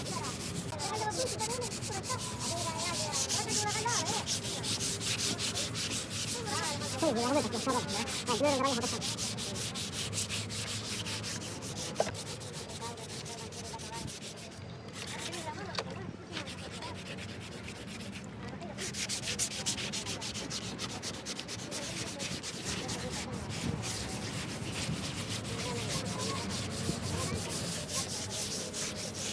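Hand wet-sanding of car body paint: sandpaper blocks scrubbed back and forth over a wet, soapy panel by two people at once, a continuous run of quick rubbing strokes.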